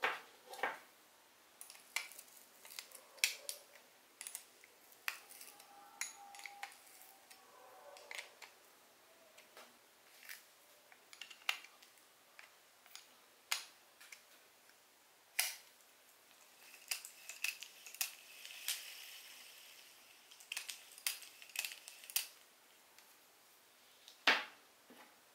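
Scattered light clicks and taps of small spinning-reel parts and hand tools being handled on a workbench, irregular and close together, with a soft rustle about two-thirds of the way through.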